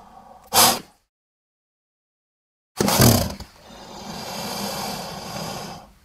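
Film sound effects of a giant crocodile monster: a short loud roar burst, a second or so of dead silence, then a loud roar about three seconds in that carries on more quietly for a couple of seconds and cuts off.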